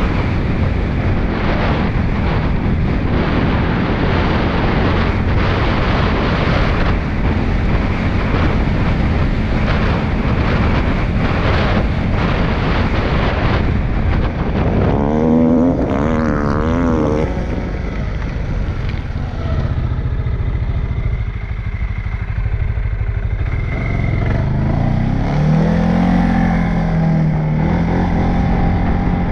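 CFMOTO CForce 625 ATV engine running under throttle on a rutted dirt track, mixed with a heavy rush of noise during the first half. About halfway through the engine note wavers quickly up and down, and near the end it rises and then holds.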